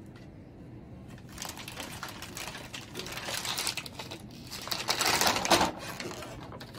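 Crinkling and rustling of plastic peritoneal dialysis solution bags and their plastic wrapping as they are handled, growing louder and loudest about five seconds in.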